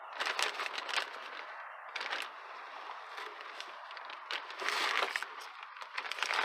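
A plastic bag crinkling and rustling as it is handled, in several short bursts, loudest near the end.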